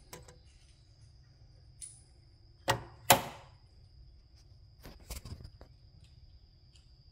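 Two loud, sharp knocks of hard objects about three seconds in, then a quick cluster of lighter knocks a couple of seconds later, over a faint steady high whine and low hum.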